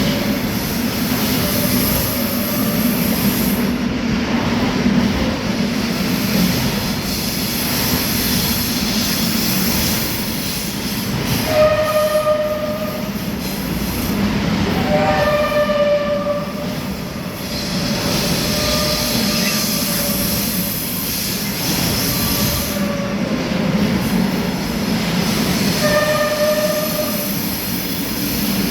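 Intermodal freight train rolling through a station with its wheels squealing: a steady rolling rumble under a thin high-pitched squeal. Louder pitched squeal tones ring out three times, around twelve, fifteen and twenty-six seconds in.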